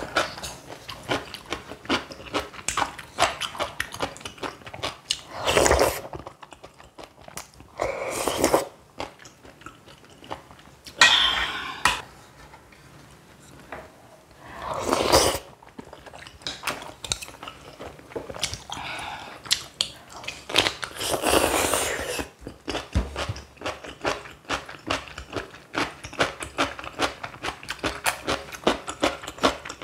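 Close-miked eating: steady crunchy chewing with rapid crisp clicks, typical of biting into stuffed cucumber kimchi, broken by about five louder, noisier stretches of about a second each, such as slurps of ramyeon noodles.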